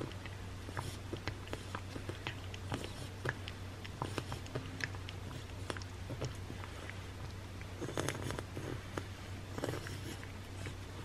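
A cat licking a churu lickable treat off a plate: faint, irregular wet clicks and smacks of tongue and mouth over a low steady hum.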